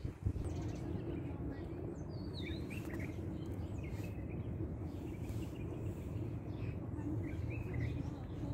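Small birds chirping in short, scattered calls over a steady low background rumble.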